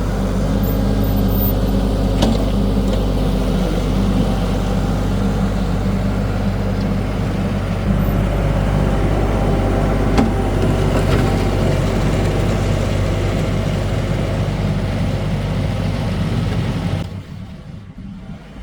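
Kioti NS6010 compact tractor's diesel engine running steadily while it back-drags a gravel driveway, with a few sharp knocks. The sound drops off sharply near the end.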